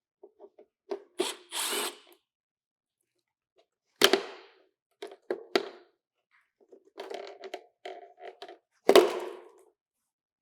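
Power drill with a T20 Torx bit, run in short spurts to back out bolts, with several sharp knocks and clunks of the tool and parts in between; the loudest knocks come about 4 and 9 seconds in.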